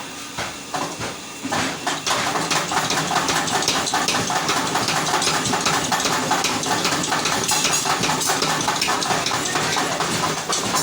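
Forge-shop machinery running: a steady mechanical noise with a fast rattle, stepping up louder about two seconds in.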